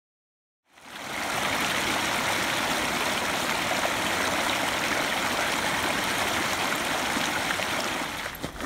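A shallow mountain creek rushing and splashing over rocks: a steady water noise that fades in after about a second of silence and drops away near the end.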